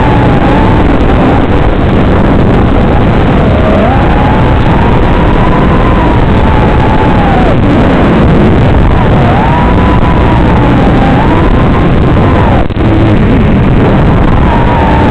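FPV racing quadcopter motors whining under a loud, steady hiss, their pitch rising, holding and falling several times as the throttle changes.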